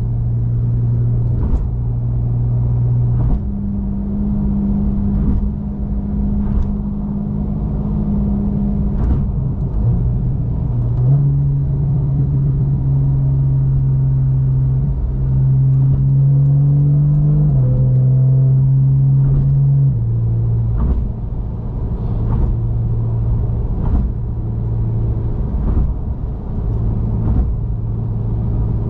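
Porsche 911 Carrera S flat-six with the factory sport exhaust droning steadily while cruising on an expressway. Its pitch steps up or down a few times, and there are light knocks every couple of seconds.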